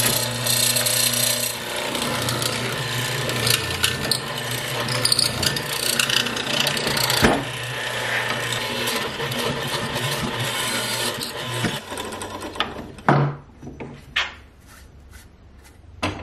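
Electric power tool running and cutting wood with a steady motor hum, stopping about twelve seconds in; a few sharp knocks follow near the end.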